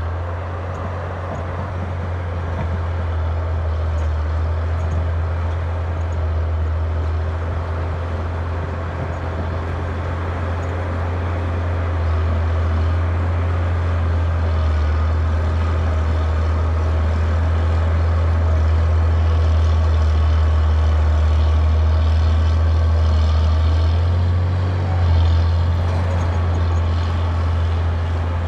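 Caterpillar D6D crawler dozer's diesel engine running steadily under load while breaking out shale and clay, with a short change in the engine note about 24 seconds in.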